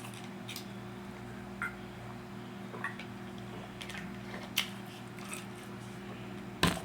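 A person eating: a few soft mouth smacks and clicks of food and cutlery, the sharpest one near the end, over a steady low electrical hum.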